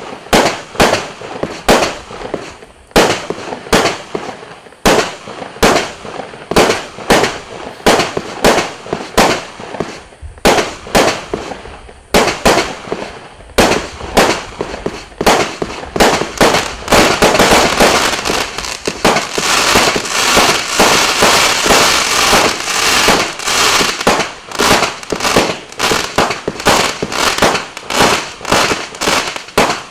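256-shot fireworks cake firing a rapid run of shots, about two a second, each a sharp bang. About halfway through, the shots pile together into a dense, continuous barrage for several seconds, then return to a steady succession.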